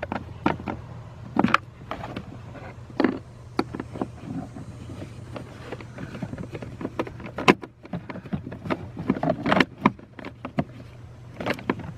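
Irregular clicks and light knocks of hand work under a truck's dashboard, a nut driver and wiring connectors being handled around a freshly installed blower motor, over a steady low hum.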